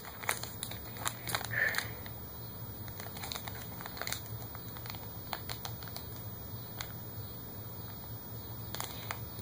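Trading-card pack wrapper crinkling and rustling in the hands as it is handled to be opened, with scattered small clicks, busiest in the first couple of seconds.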